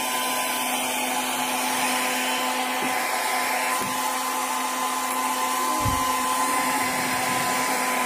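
Philips HP8126 hair dryer running at its highest of three speeds: a steady, noisy rush of air with a motor whine held at one pitch. A brief low thump about six seconds in.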